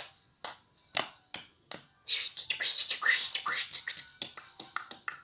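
Budgerigar chattering: a few sharp clicks in the first two seconds, then a fast, dense run of scratchy warbles and clicks.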